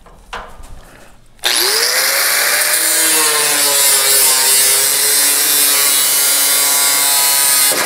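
Handheld angle grinder starting about a second and a half in, its whine rising as the wheel spins up, then cutting through the sheet steel of a classic truck cab's rear panel, the pitch wavering as it cuts.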